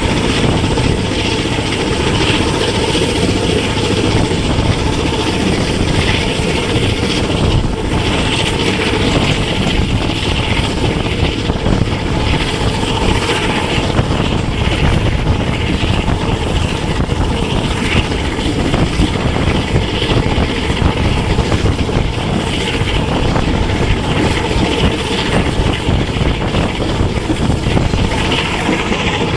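Passenger train hauled by a ZCU-30 diesel-electric locomotive running at speed: a loud, steady drone and rush.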